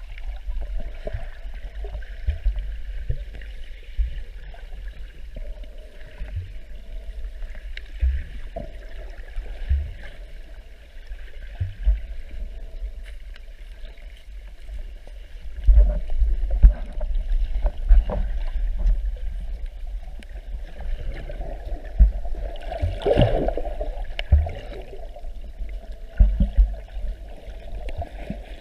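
Muffled underwater sound picked up by a GoPro inside its sealed waterproof case: a steady deep rumble of moving water with irregular dull thumps and knocks. A louder rush of water comes about three-quarters of the way through.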